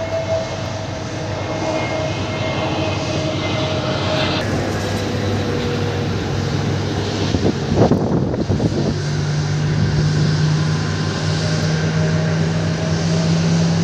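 Airbus A320 twin turbofan engines landing. A steady jet whine slides slowly down in pitch as the airliner passes, there is a brief rush of noise about eight seconds in, and then a steady, louder low drone follows on the rollout.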